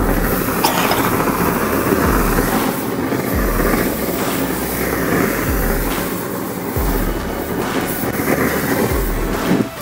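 Hand-held flame roaring steadily as it is swept over the painted paper, starting suddenly and cutting out just before the end. Background music with a deep, regular bass beat runs underneath.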